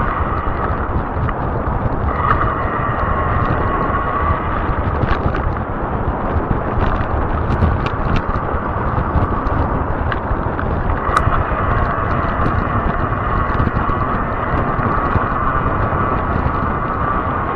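Riding noise of a fat-tire e-bike on pavement: wind buffeting the microphone over a steady rolling hum, with a whine that swells about two seconds in and again past halfway, and scattered small clicks and rattles.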